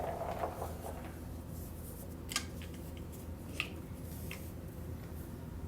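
A few light clicks, three spread over a few seconds, from a pistol and its 40-round drum magazine being handled, over a steady low hum. The ringing of the shots just fired fades at the start.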